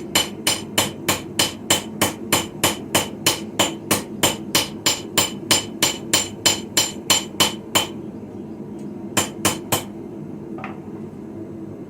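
Hand hammer striking a sickle blade on a small early-medieval-style Viking anvil: a fast, even run of ringing blows, about four a second, for some eight seconds, then a pause and three more blows. A steady low hum runs underneath.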